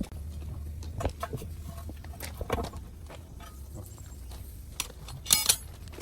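Metal tools clinking and knocking on metal during heavy tyre repair work, with a short fast rattle about five seconds in, over a steady low hum.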